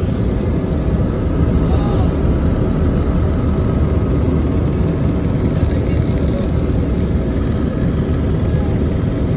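Helicopter cabin noise in flight: the engine and rotor drone steadily and loudly, heard from inside the cabin.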